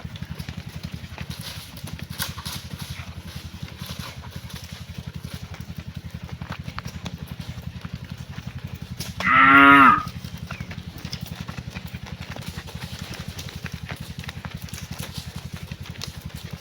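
A cow moos once, loudly, for about a second, a little past the middle. Under it a low engine runs steadily throughout.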